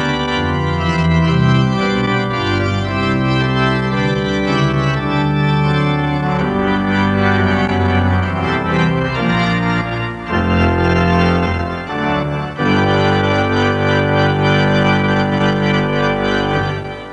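Slow organ music of held, changing chords, played as a TV station's closedown music; it fades away right at the end.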